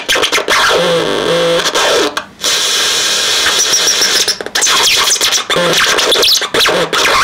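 Homemade electronic noise synthesizer played by hand: harsh buzzing noise with warbling, gliding tones and short chirps that cut in and out abruptly.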